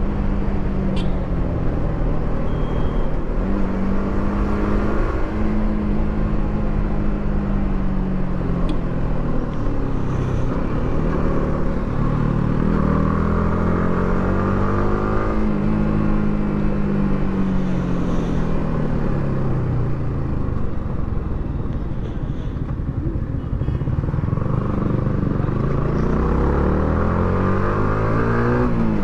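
Yamaha R15 V3's single-cylinder engine through its stock exhaust, under way. The engine pitch climbs and drops several times as it speeds up and eases off.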